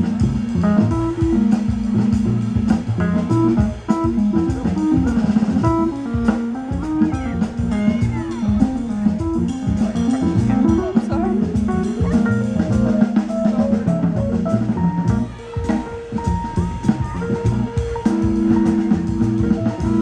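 Live jazz band playing: saxophone melody over bass and drums, amplified through a PA.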